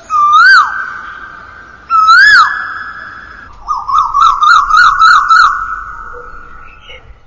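Bird's whistled call: a loud note that rises and then drops, repeated about two seconds later, then a quick run of about seven short rising-and-falling notes. Each leaves a steady tone that lingers and fades.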